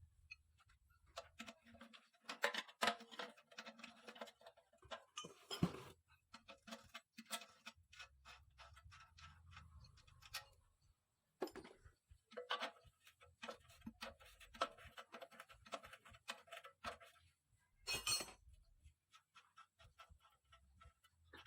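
Scattered light clinks and clicks of small metal parts and hand tools being handled while an engine is worked on.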